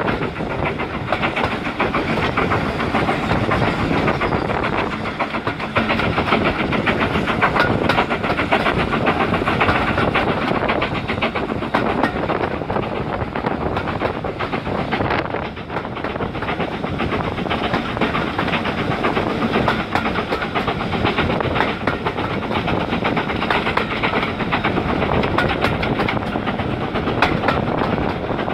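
Train running steadily along the track, its wheels clicking over and over on the rail joints.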